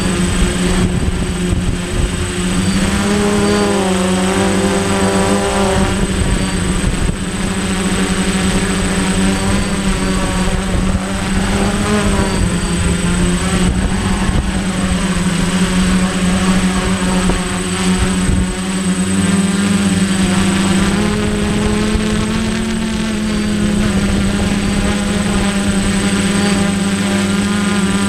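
DJI Flame Wheel 450 quadcopter's motors and propellers buzzing in flight, the pitch wavering up and down as the motors change speed, with wind rumbling on the microphone.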